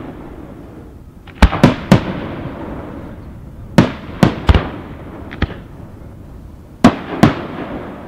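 Aerial firework shells bursting: about nine sharp bangs in clusters of two or three, about a second and a half in, around the middle and near the end, each trailing off in a fading rumble.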